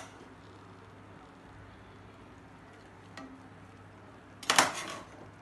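A utensil knocking and scraping against a cooking pot while cooked rice is spread over biryani masala: a light tap about three seconds in, then a short, loud clatter near the end.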